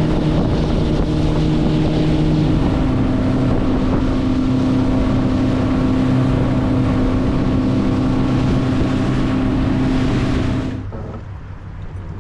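Vehicle engine running steadily with wind noise on the microphone; its pitch shifts about two and a half seconds in, and the sound drops away abruptly near the end.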